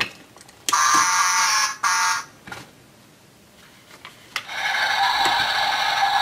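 Battery-powered toy railway crossing platform sounding its electronic crossing alarm through a small speaker. A shorter electronic sound comes about a second in, then a steady buzzing alarm starts about four seconds in. Light clicks come from the plastic crossing barriers as they are lowered by hand.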